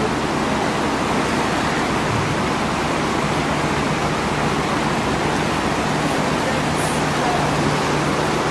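Steady rushing of water in a small shallow river, with a vehicle engine running low underneath.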